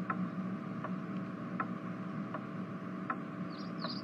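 A light regular ticking, about one tick every three-quarters of a second, over a steady low hum, with a few short high chirps near the end.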